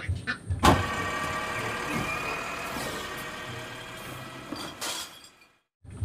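Toy garbage truck: a click about half a second in, then a steady mechanical whirring from the toy that slowly fades and cuts off suddenly near the end.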